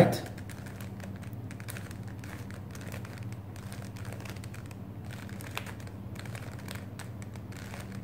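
A 3x3 Rubik's cube turned by hand through a run of moves: quick, light clicks and rattles of the plastic layers rotating, over a steady low hum.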